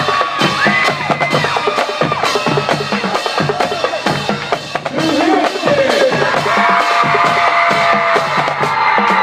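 Music with a steady drum beat of bass drum and snare under held melody notes that bend and slide.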